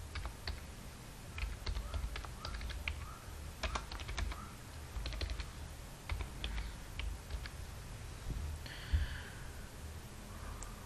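Computer keyboard typing: irregular keystrokes in short runs as a line of code is entered, with a brief hiss about nine seconds in.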